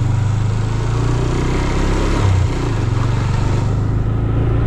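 Motorcycle engine running steadily while riding, under a broad rush of wind and road noise, with a brief change in the engine note a little over two seconds in.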